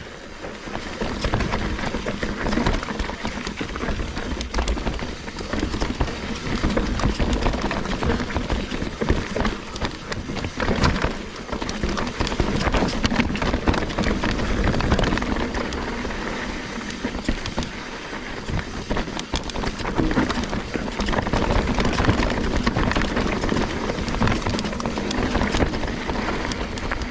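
Trek Slash 9.8 full-suspension mountain bike riding down a dirt trail: tyres crunching over dirt and rocks, with steady noise and frequent rattles and knocks from the bike.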